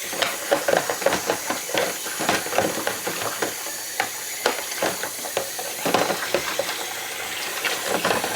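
Water running from a tap into a sink, a steady hiss, with repeated small knocks and clatters of dishwasher filter parts being handled in it.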